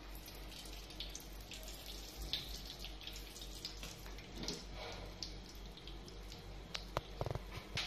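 Oil heating in a nonstick pan on a gas stove, crackling faintly with scattered small pops. A few sharper clicks and a short knock come near the end.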